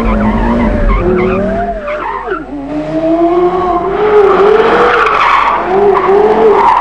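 Porsche Carrera GT's tyres squealing in long wavering tones over its V10 engine as the car slides sideways through hairpin bends with traction control switched off. The deep engine sound drops away about two seconds in.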